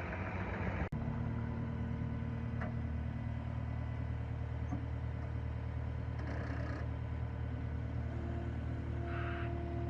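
Caterpillar 236D skid steer's diesel engine running steadily at idle, with a brief cut-out about a second in. A higher steady tone joins the hum near the end.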